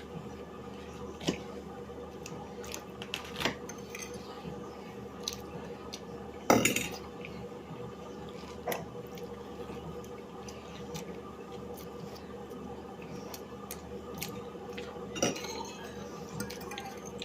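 Cutlery and a plate clinking during a meal: scattered light taps and scrapes, with one louder clatter about six seconds in, over a steady hum.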